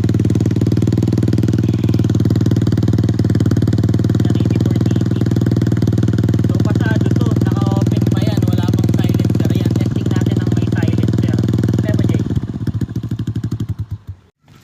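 Two-stroke single-cylinder engine of a Kawasaki Fury 125 idling steadily through an aftermarket Yoshimura Alpha clone exhaust during a decibel check; about twelve seconds in it breaks up into separate beats and fades out.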